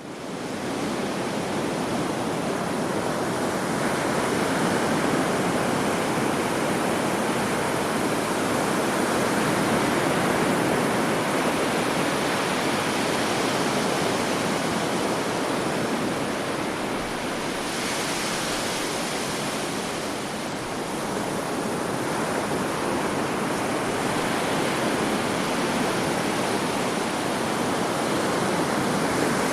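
Sea surf washing onto a beach: a steady rush of waves that fades in at the start, then slowly swells and eases.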